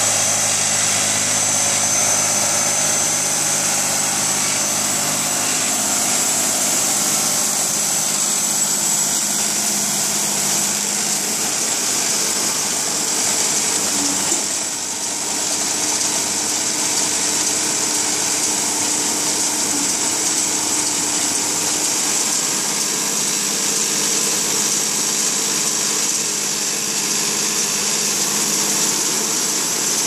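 Tractor diesel engine running steadily while driving a tractor-mounted mini round baler, which gathers and rolls dry sugarcane bagasse into a bale, with a steady mechanical whirr from the baler.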